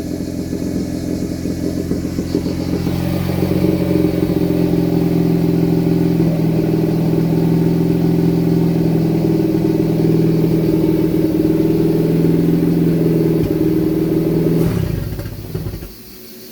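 Car engine running on a freshly raised fuel trim. It picks up about three seconds in and holds at a steady, higher speed for about ten seconds without climbing further, then dies away near the end. The owner blames its refusal to rev on a lean mixture.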